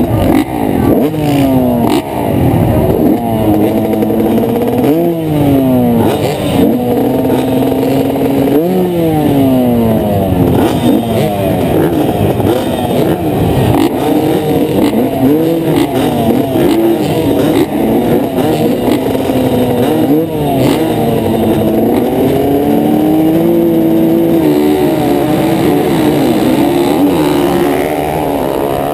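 Several motocross bike engines on the start line, revved up and down again and again. Later they are held at high revs and pull away as the riders launch off the start.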